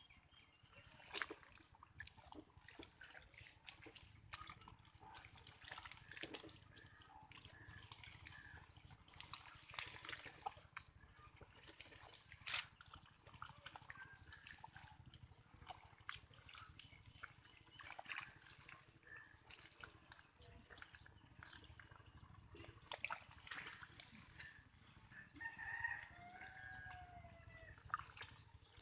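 Hands splashing and sloshing in shallow muddy rice-field water, in many short, uneven splashes. Small birds chirp in the middle stretch, and a rooster crows near the end.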